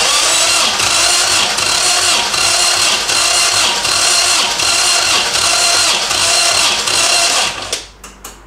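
MGB B-series four-cylinder engine being cranked on the starter motor, spark plugs out and throttle held open, for a compression test on cylinder two: a steady whirring with a regular pulse about twice a second. It stops about seven and a half seconds in, followed by a couple of clicks.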